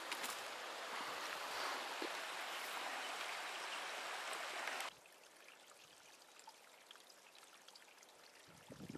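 Steady hiss of rushing water, cutting off abruptly about five seconds in. After that comes a much fainter hiss of a thin waterfall cascade, with scattered drips and trickles.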